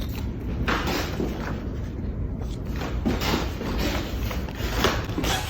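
Letterpress printing press being worked by hand, its moving parts giving a few soft knocks and rubbing over a steady low hum.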